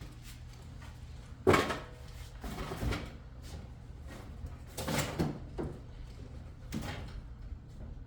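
A sharp, loud clunk like a car door shutting about a second and a half in, followed by softer knocks and rustles of someone moving in and around the car. No starter cranking or engine is heard: the car's battery is too flat, at about 10 volts, to turn the engine over.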